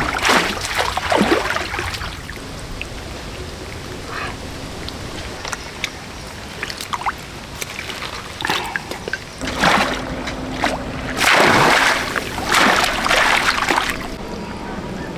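Water splashing in irregular bursts, with quieter trickling and sloshing between them. The biggest splashes come in a cluster near the end.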